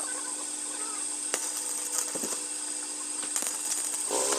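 A few light metal clicks and taps as the steel thresher basket grate is handled. About four seconds in, a stick-welding arc strikes on the grate and starts a steady buzzing hiss.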